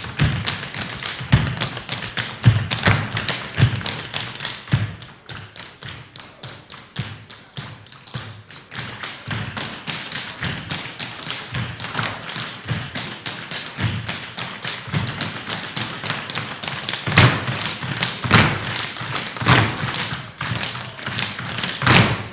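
Group of dancers doing traditional Newfoundland/Irish tap dancing in hard shoes on a wooden floor: fast, rhythmic tapping of many feet, with a few heavier stamps near the end.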